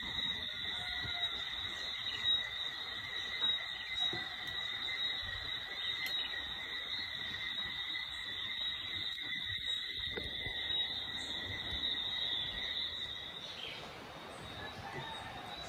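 Insect chorus: a steady, high-pitched, unbroken drone that drops out about thirteen seconds in.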